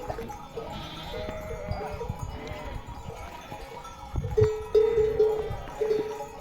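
A flock of sheep bleating, several quavering calls overlapping, with the loudest and longest calls in the last two seconds.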